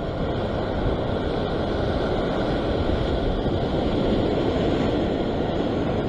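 Steady wash of ocean surf breaking over a coastal rock shelf, mixed with a low rumble of wind on the microphone.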